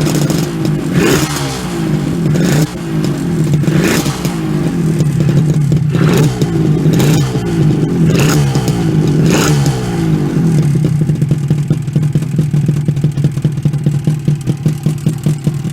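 Suzuki RG250 Gamma (GJ21A) two-stroke parallel-twin engine running through its stock exhaust silencers. It is blipped about seven times in the first ten seconds, each rev rising and dropping quickly back, then it idles for the rest.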